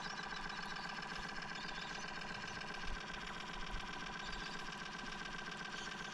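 A boat motor running steadily with an unchanging whine.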